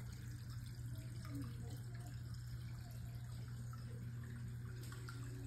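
Water trickling and dripping into a fish pond, faint and steady, with a constant low hum underneath.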